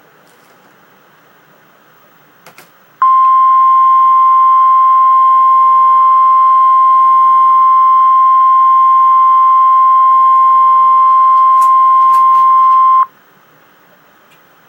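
Emergency Alert System attention signal for a National Weather Service flash flood warning: a single steady, loud high tone, the NWS 1050 Hz alarm tone, starting about three seconds in and holding for about ten seconds before cutting off sharply. Before it there is only faint hiss and a brief click.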